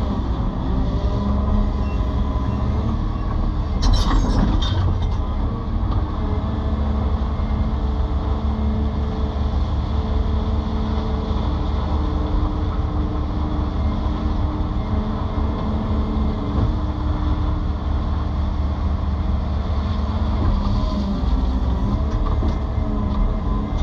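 Excavator engine and hydraulics running steadily while the machine works, with a short metallic clatter about four seconds in and another near the end.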